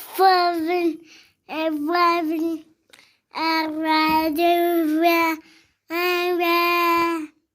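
A child singing a nursery song in four held phrases with short pauses between them.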